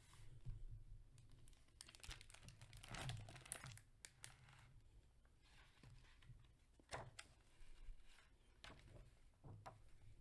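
Faint rustling and crinkling of a picture book's paper pages being handled and turned, in a few short spells with a few soft ticks; the busiest stretch comes a couple of seconds in.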